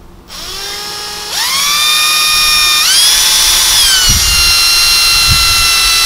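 Cordless drill running to drill a screw hole for an RV screen-door grab handle, its motor whine starting low and stepping up in pitch twice as the trigger is squeezed harder. Two dull thumps in the second half.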